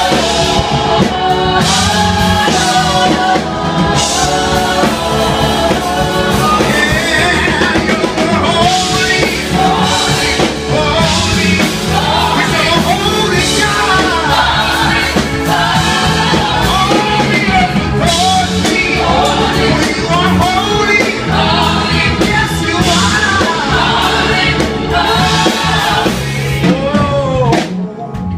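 Live gospel music: a male lead singer and a group of backing vocalists singing together over band accompaniment. Near the end the band thins out and the level dips, leaving the voices more exposed.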